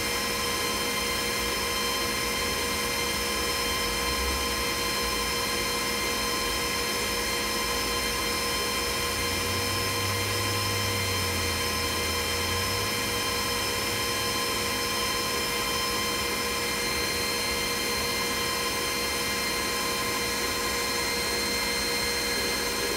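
Glowforge CO2 laser cutter running a job: the steady whir of its fans with many steady tones in it, and a low hum that swells for a few seconds near the middle.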